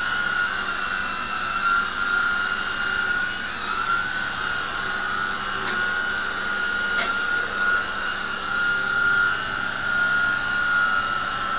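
Double Horse DH 9074 RC helicopter in flight: its small electric motors and rotors make a steady high-pitched whine with a slight dip in pitch a few seconds in. There is one brief click about seven seconds in.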